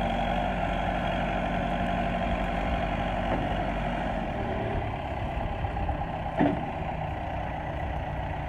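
Backhoe's diesel engine running steadily at idle, with one short knock about six seconds in.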